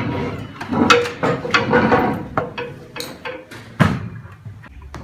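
Classroom chairs scraping and knocking against wooden desks as several people sit down, with a sharp knock about four seconds in.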